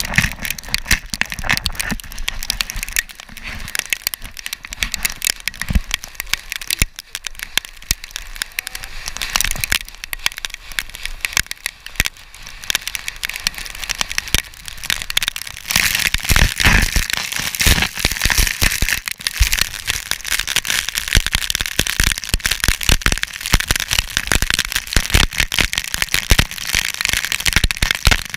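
A board sliding fast down loose volcanic cinder gravel, with the rider's feet dragging in it: a dense, continuous crackle of grit scraping and spraying, with stones and grit pelting the camera housing. It grows heavier a little past halfway.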